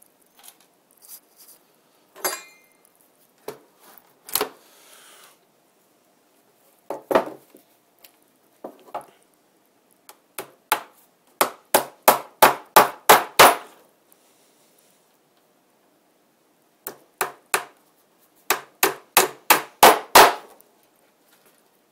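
Hammer driving 1¼-inch nails through a wooden cleat into a beehive bottom board. A few scattered taps come first, then two runs of about ten quick blows each, around the middle and again near the end.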